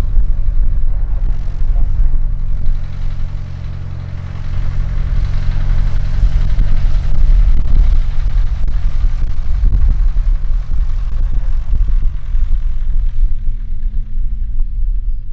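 Propeller engine of a Verhees Delta flying-wing light aircraft running steadily on its landing approach, a deep continuous drone that dips slightly about three seconds in and then comes back up.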